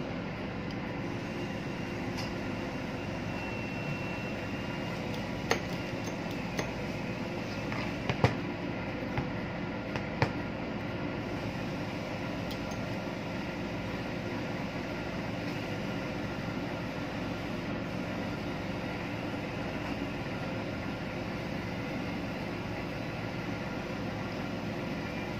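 Steady machinery hum, with a few light metallic clicks and clinks between about five and ten seconds in as the parts of an opened speed dial indicator are handled with a screwdriver.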